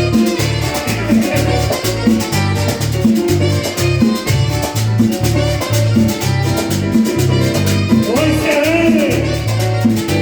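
Latin band music with a bass line pulsing on a steady beat, and a melody line sliding up and down near the end.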